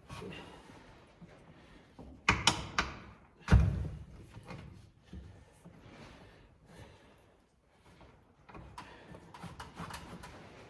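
Sharp knocks and thuds of work handling: a quick cluster of knocks about two seconds in, then one heavier thud, with scattered lighter clicks and rustling after that.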